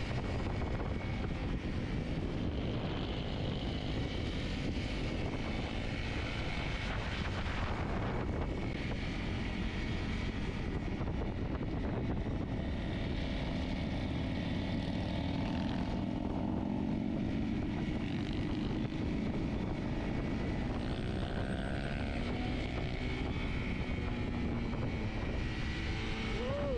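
Dual-sport motorcycle engine running while riding, its pitch drifting up and down with the throttle, under a steady rush of wind and road noise.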